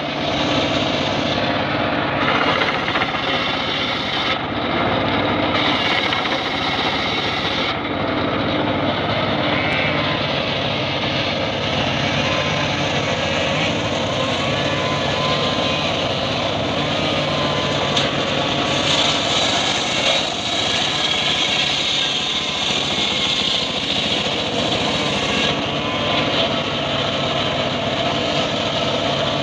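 Engine-driven homemade circular sawbench running steadily. For the first several seconds its blade rips through mahogany, with on-and-off hiss from the cut. After that the blade spins with no wood in it.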